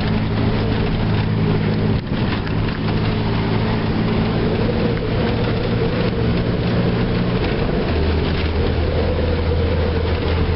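Ford F-150 pickup's 300 cubic-inch inline-six engine running under load in four-wheel drive through deep snow drifts, over a steady rush of snow and tyre noise. The engine note drops to a lower pitch about eight seconds in.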